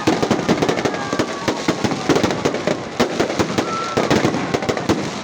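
Fireworks going off in a dense, continuous crackle of rapid pops.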